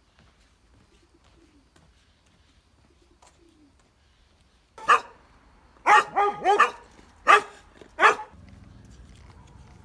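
Dogs barking at a passer-by through a gate: a quick, loud run of about seven barks starting about five seconds in, several of them close together in the middle.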